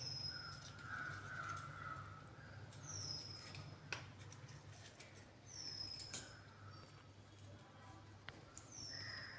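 A bird repeats a short, high call that drops in pitch, four times about three seconds apart. Between the calls come faint clicks of pliers working a stuck piece of PVC pipe out of a fitting, over a low hum.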